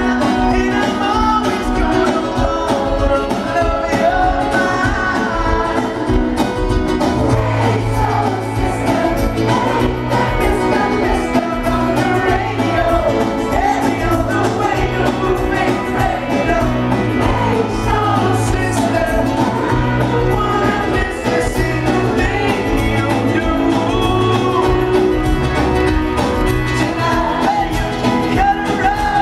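Pop-rock band playing live with a lead singer, heard from the audience; a bass line comes in about seven seconds in.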